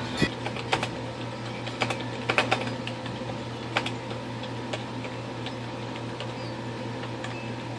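Keys of a wireless computer keyboard being pressed: scattered clicks, a few close together, over a steady low hum. The freshly washed and dried keyboard is being typed on to test whether it still works.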